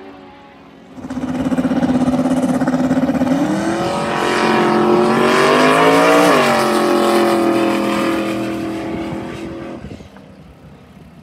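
Drag-race car's engine run at full throttle down the strip, starting suddenly about a second in. The pitch climbs, drops sharply about six seconds in at a gear change, then holds while fading and cuts off near the end.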